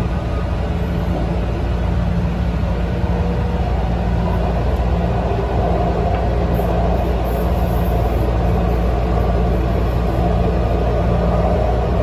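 Taichung MRT train running steadily along an elevated track, heard from inside the car: an even rumble of wheels and running gear with a low, steady hum.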